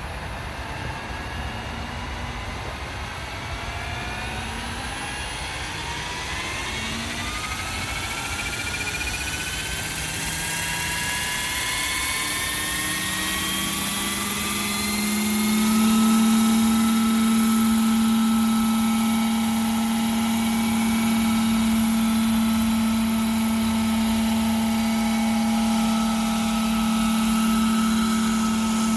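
Hirobo Dauphin RC scale helicopter spooling up: its whine rises steadily in pitch and grows louder for about fifteen seconds, then holds a steady pitch at full rotor speed.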